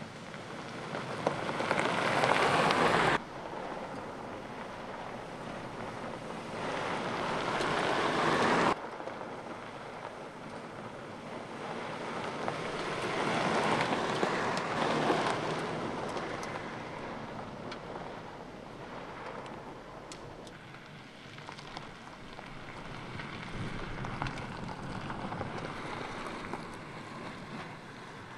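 A Suzuki Jimny driving past on dirt and gravel tracks: a rushing noise of tyres on gravel that builds as it approaches, several times over. The first two passes cut off abruptly, about 3 and 9 seconds in.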